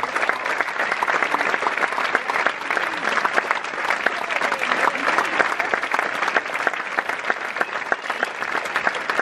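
Theatre audience applauding, steady dense clapping that keeps on without a break.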